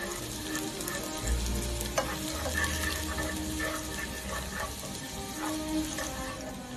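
Chopped aromatics sizzling in hot oil in a nonstick frying pan while a wooden spatula stirs them, with a few light taps and scrapes of the spatula against the pan.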